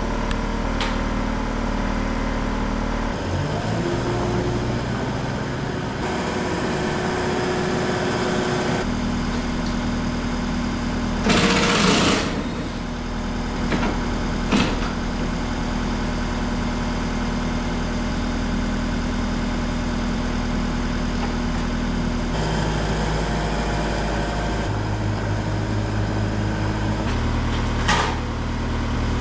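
A motor running steadily, its pitch shifting abruptly a few times. There is a loud burst of noise a little before the middle, and a couple of sharp metallic knocks.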